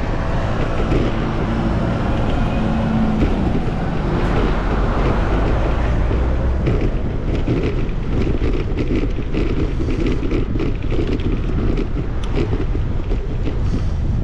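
Wind rumbling on the microphone of a moving bicycle, mixed with traffic noise, with a vehicle engine heard in the first three seconds.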